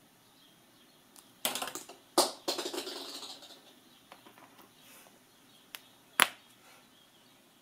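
Handling noise from a Kinder Surprise egg's plastic toy parts and wrapping: a crinkly, clicking stretch about a second and a half in, then a sharp plastic snap about six seconds in as the yellow toy capsule is pried open.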